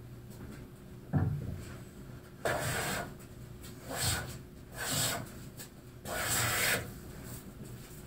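Stanley No. 7 jointer plane, its sole waxed with beeswax, taking four strokes along the edge of a white ash board, each a short hiss of the iron shaving wood. A single thump comes about a second in.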